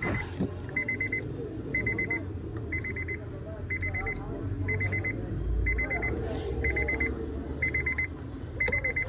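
A car's warning chime beeping: a short burst of rapid high beeps about once a second, repeating steadily, over a low background hum.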